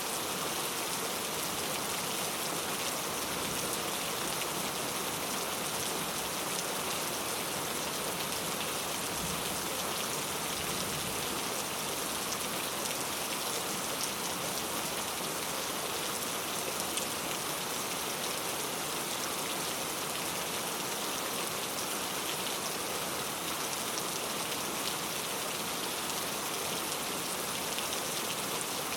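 Heavy rain falling steadily: a dense, even hiss of rain with scattered individual drops ticking through it.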